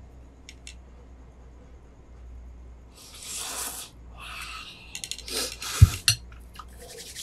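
Spicy noodles being slurped from a bowl in several hissing draws starting about three seconds in, with light utensil clicks on the bowl and one sharp thump near the end.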